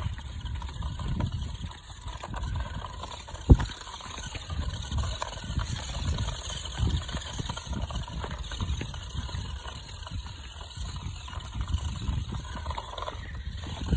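Small electric toy RC monster truck driving over sand and dirt, its motor and gears whirring, with uneven low rumbling throughout and one sharp knock about three and a half seconds in.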